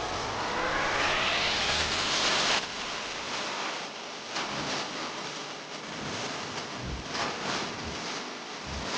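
Electric motor of a Toto battery e-rickshaw spinning up with a rising whine that cuts off suddenly about two and a half seconds in, followed by a few light knocks and handling noises.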